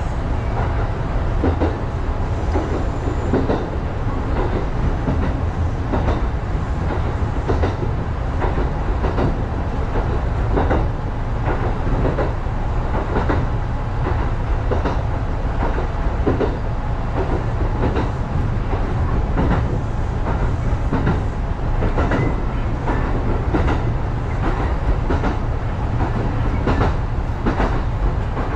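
Kintetsu electric train running along single track: a steady low rumble with the repeated clickety-clack of wheels striking rail joints, heard from inside the front of the car.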